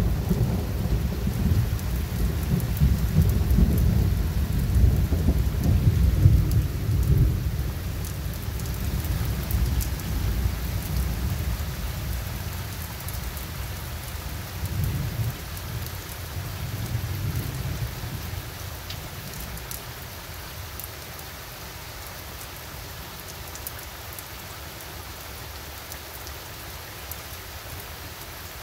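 Long rolling rumble of thunder, loudest over the first several seconds, swelling once more near the middle and then dying away, with steady rain falling throughout.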